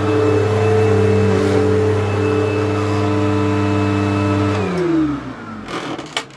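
Upright vacuum cleaner running steadily with a strong hum, then switched off about two-thirds of the way through, its motor winding down in falling pitch. A few sharp clicks and a knock come near the end.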